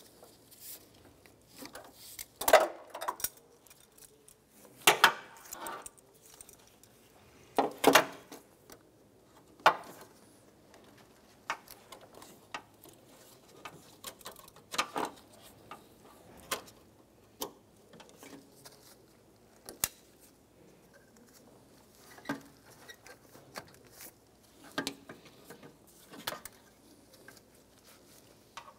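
Scattered clicks, clinks and knocks of hand work on hoses, clamps and plastic clips under a car's hood as the upper radiator hose is fitted. The loudest knocks come about two and a half, five and eight seconds in, with lighter clicks spread through the rest.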